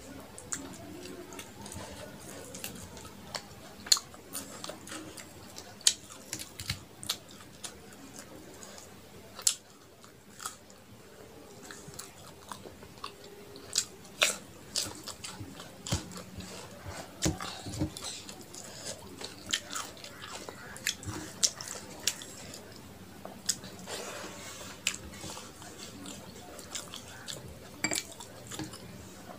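Close-miked chewing and wet mouth smacks of a person eating rice with chicken curry by hand. Irregular sharp clicks run throughout, along with the sound of fingers mixing rice on a metal plate.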